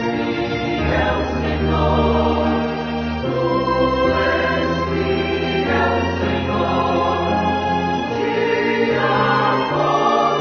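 Choral sacred music: a choir sings long held chords over a low bass, moving to a new chord every two seconds or so.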